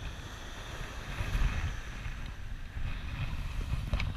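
Wind buffeting the microphone in uneven gusts, over a steady hiss of surf, with one sharp click near the end.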